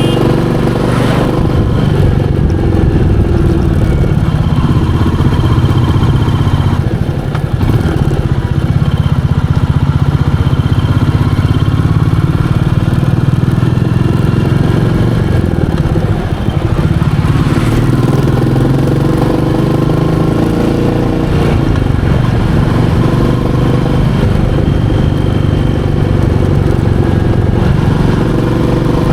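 Royal Enfield Meteor 350's single-cylinder engine running steadily on the move, with two brief dips in loudness, about a quarter and about halfway through.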